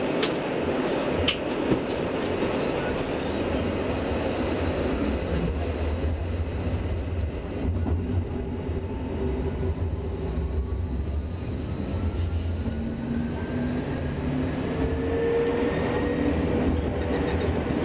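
A32 light-rail tram running along its track, heard from inside at the front: a steady rumble of wheels on rail, with a few sharp clicks near the start. Through the second half a thin electric traction-motor whine rises steadily in pitch as the tram picks up speed.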